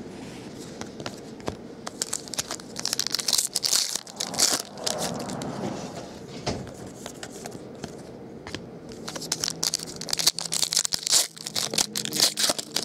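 Foil wrappers of Panini Prizm basketball card packs being torn open and crinkled by hand, with cards slid against each other. The crackling comes in two spells, a few seconds in and again near the end.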